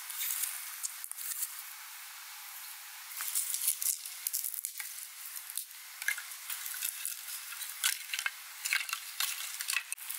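A knife shaving a wooden stick in quick scrapes for about a second, then dense crackling and snapping of dry twigs and dry grass being handled and laid for a fire.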